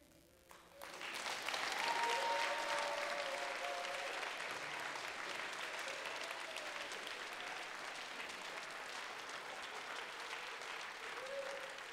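Audience applauding, with a few voices whooping and cheering. The applause starts about a second in, swells within a second or so, then slowly tapers off.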